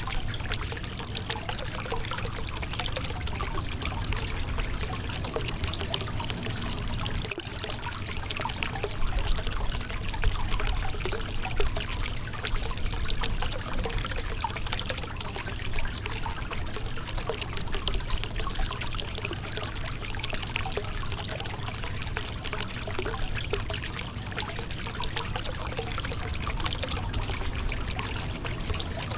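Shallow river water running and trickling over a rocky bed, a steady rush with small splashes.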